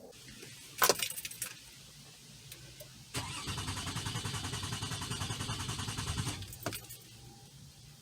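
Key clicks in the ignition about a second in. Then the 2004 Toyota Sienna's 3.3-litre V6 cranks on the starter with a steady rhythmic chug for about three seconds and stops without firing: a crank-no-start, caused by a blown fuel-injection fuse.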